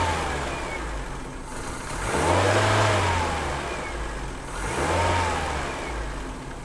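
Triumph Acclaim's 1.3-litre Honda-built four-cylinder engine running, its revs rising and falling back in slow throttle blips about every two and a half seconds to keep it ticking over with the choke pushed in. The idle is lumpy, which the owner puts down to ignition timing that needs setting.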